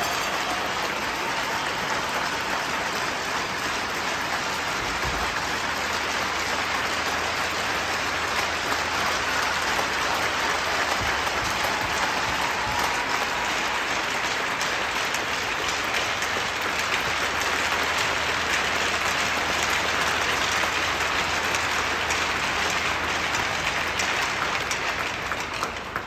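Hockey-arena crowd applauding steadily and at length, then fading out near the end.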